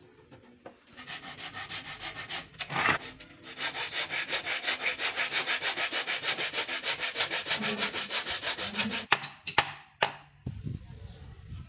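Hand saw cutting across a thin wooden beading strip, with fast, even back-and-forth strokes. A few sharp knocks come near the end.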